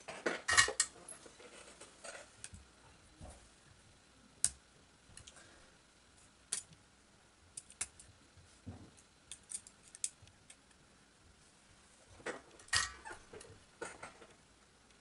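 Sharp metallic clicks and light clatter of small hand tools and parts being handled: single clicks every second or two, with busier clatter near the start and again about twelve seconds in.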